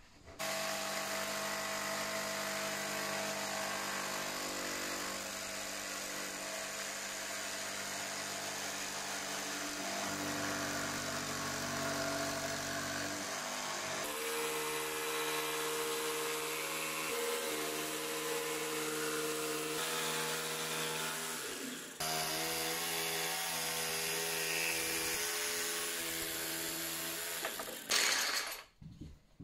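Ryobi battery-powered jigsaw running steadily as its blade plunges into a wooden board and saws through it. The sound changes abruptly about halfway through and again later, then stops shortly before the end.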